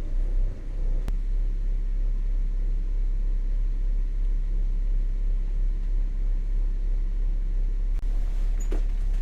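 Wind buffeting the microphone: a steady, wavering low rumble, with a faint click about a second in and again near the end.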